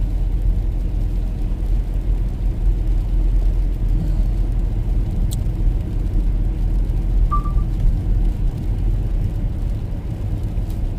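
Steady low rumble of a car's engine and road noise heard from inside the cabin while driving. There is one sharp click about five seconds in and a very short high beep a little after seven seconds.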